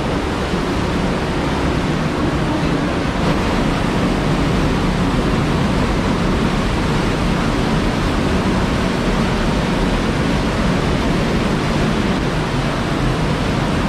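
Steady rush of a river and a small waterfall flowing through a narrow rock slot canyon.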